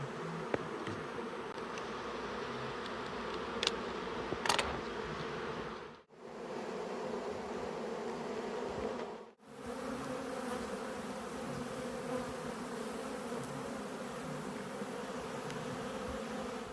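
Steady buzzing hum of a large honey bee swarm in flight close by.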